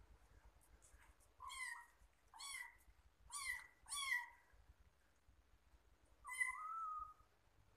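Young kitten mewing: four short, high mews in quick succession, then a pause and one longer mew near the end.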